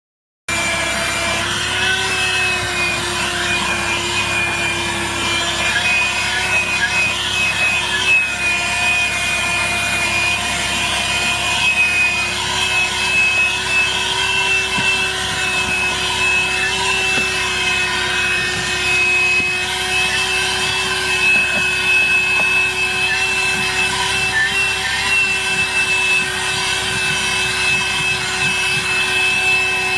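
ThisWorx TWC-01 12-volt corded handheld car vacuum running continuously while vacuuming a car: a steady motor whine with a lower hum and a higher tone, pitch wavering slightly. It starts abruptly just after the beginning.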